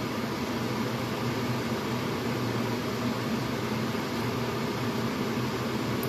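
Steady hiss with a low hum underneath, unchanging throughout: constant machine-like background noise such as a fan or air conditioner gives.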